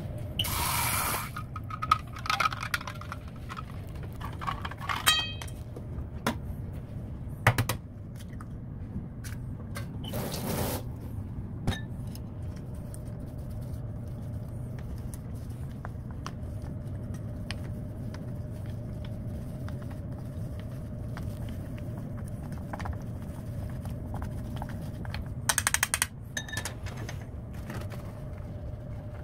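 Tempura batter being mixed in a stainless steel bowl: chopsticks clicking and scraping against the metal, with scattered clinks and two short splashy bursts of liquid being poured, over a steady low hum.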